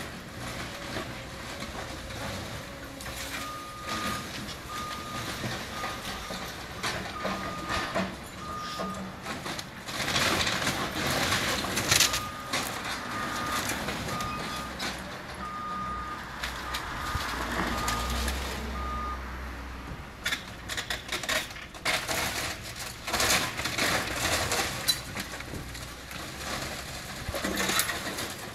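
Heavy machinery's reversing alarm beeping in two runs, about one and a half beeps a second, over crashes and crunching of demolition debris, with a low engine rumble.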